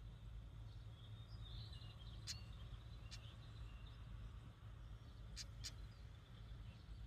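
Siberian stonechat calling faintly: a few soft chirps, then a handful of short, hard ticking notes, two of them close together later on. A steady low rumble lies underneath.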